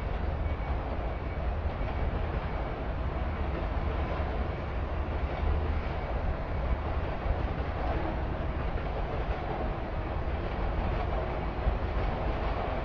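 A train running past with a steady rumble and rattle, unbroken throughout.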